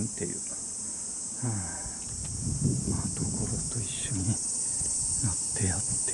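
A steady, high-pitched chorus of insects shrilling throughout. A voice is heard briefly about a second and a half in and again near the end, over some low rumbling.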